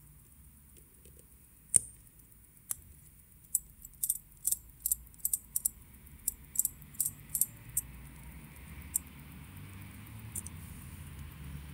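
Small, sharp metallic clicks of steel watchmaker's tweezers working on a Ulysse Nardin UN-118 watch movement: one louder click about two seconds in, then a quick, irregular run of light clicks for about four seconds and a single one near the end.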